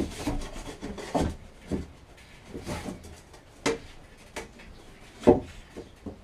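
Irregular knocks and scraping rubs, as of parts being handled and worked by hand. The sharpest knock comes about five seconds in.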